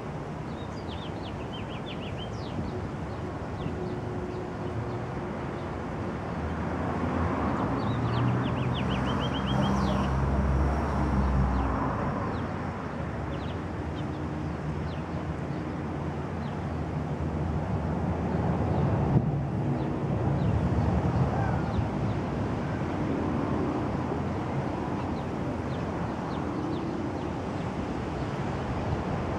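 Steady rumble of outdoor traffic, with engine hum from passing vehicles swelling twice, about a third of the way in and again about two-thirds in. Short runs of quick, high bird chips come through above it a couple of times.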